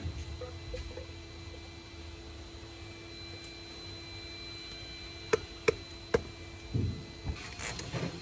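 Hand tools handling engine parts over a steady hum: three sharp clicks a little past halfway, then a few softer knocks and rubbing near the end.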